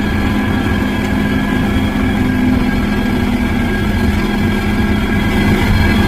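Heavy truck engine running steadily at a constant speed, a low rumble with a steady hum on top.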